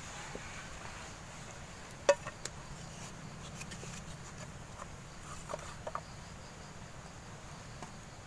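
Steady high insect chirring in the background, with a few light knocks and clacks as a wooden board and a metal camping pot are handled. The sharpest knock comes about two seconds in, with softer ones near the middle.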